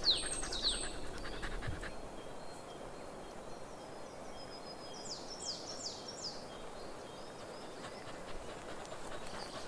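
Quiet woodland ambience with a bird singing: a quick run of high, down-slurred chirps at the start and another run of four or five about five to six seconds in.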